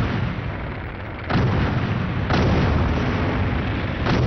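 Heavy guns firing in battle: three sudden booms, about 1.3, 2.3 and 4.1 seconds in, each dying away in a long rumble over a continuous low roar.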